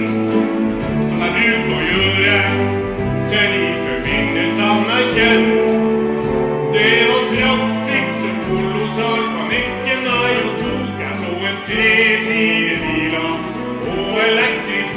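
Music: singing over instrumental accompaniment with a moving bass line.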